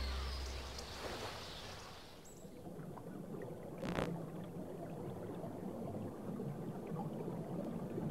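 Rushing river water, hissy at first and fading over about two seconds, then a low, muffled gurgling of water, with a single sharp click about four seconds in.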